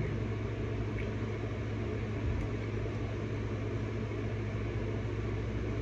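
Steady low hum and hiss of room background noise, with faint clicks from a plastic action figure being handled.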